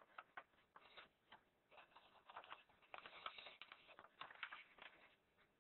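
Faint rustling and crackling of a folded sheet of A4 paper being handled and its creases worked as the paper airplane's wings are opened out: an irregular run of small crackles, busiest past the middle and dying away near the end.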